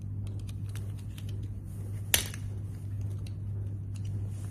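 Plastic and metal wall-socket parts being handled and fitted by hand: a few faint ticks and one sharp click about two seconds in, over a steady low hum.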